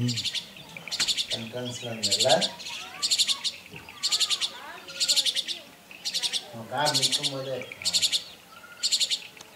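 Juvenile jungle myna calling: short, harsh, rasping calls repeated about once a second.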